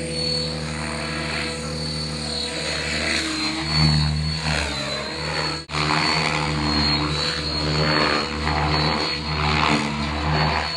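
Align T-Rex 700E electric radio-controlled helicopter flying aerobatics: a high steady whine over the swish of its rotor blades. The sound swells and fades as the helicopter swoops and changes attitude, with a brief sudden drop about halfway through.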